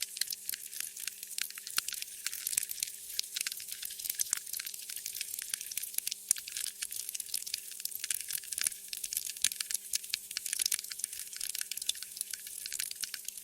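Wood fire in a fireplace crackling, with dense, irregular snaps and pops over a steady hiss.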